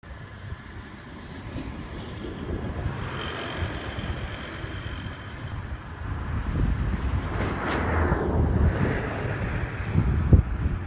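Wind rumbling on the microphone, with a vehicle passing that swells and fades about seven to eight seconds in, and a sharper gust near the end.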